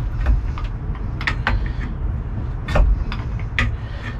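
Several sharp metallic clicks and clunks from a breaker bar and engine rotation adapter as the crankshaft of a long-seized Mercruiser 4.3 V6 is turned slowly by hand, over a steady low rumble.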